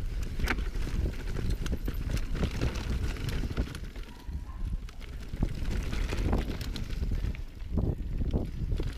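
Mountain bike clattering over rough singletrack, with many irregular knocks and rattles from the bike, and a steady low rumble of wind on the microphone.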